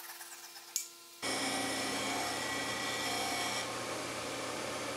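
Bench disc sander running as the end of a turned wooden handle is sanded against the disc, its steady motor hum and grinding starting suddenly about a second in, after a faint hum and a click.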